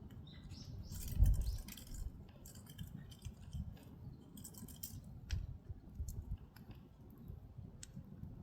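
Firewood burning in a traditional Korean agungi firebox: irregular crackles and pops over a low rumble of the fire, with one louder pop about a second in.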